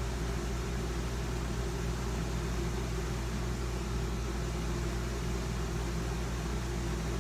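Steady machine hum with a low drone and an even hiss, unchanging throughout, from a running household appliance.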